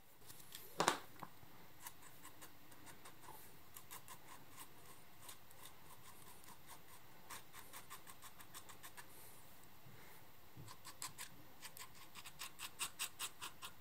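Small metal file scraping in short repeated strokes across the soldered wire grille on the end of a tiny brass tube, filing it flush. A sharp knock about a second in, and the strokes grow louder and quicker near the end, about three a second.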